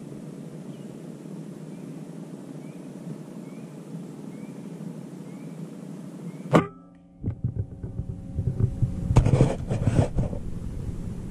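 A single air-rifle shot at a perched dove: one sharp crack about six and a half seconds in, over a steady low background hum with faint short chirps. Several seconds of irregular rustling and knocks follow, loudest near the end.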